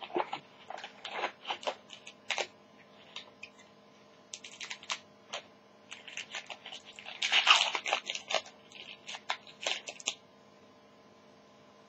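Foil trading card pack wrapper crinkled and torn open by hand: a run of small crackles and rips, busiest about seven to eight seconds in, stopping about ten seconds in.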